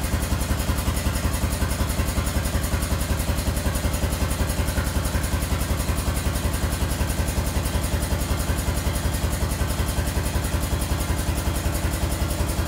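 Air-powered hydraulic pump of a telescopic drum tipper running steadily with a rapid, even pulsing as the mast lifts a clamped drum to full height.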